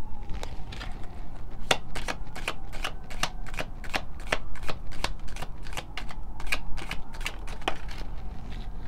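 A deck of oracle cards being shuffled by hand: the cards snap against each other in quick, irregular clicks, a few a second.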